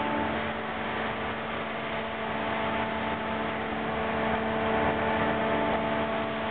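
Fishing-vessel machinery running steadily: a constant hum with a few held tones over a dense rushing noise.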